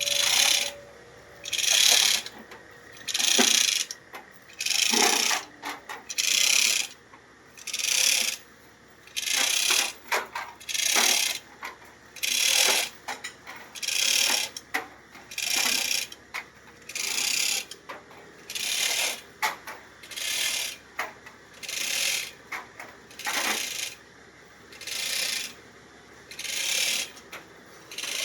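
Chain hoist being worked in steady strokes to lower an engine, each pull on the hand chain giving a short metallic rattle of chain and ratchet, about one stroke every second and a bit.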